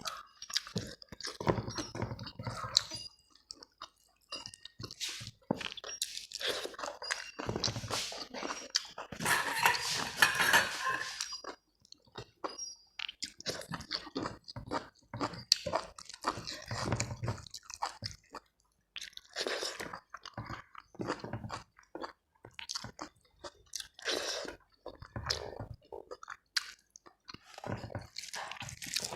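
A person chewing and crunching mouthfuls of a meal of rice, dal, fried potatoes and cabbage salad, in irregular bursts of bites and chews with short pauses between them.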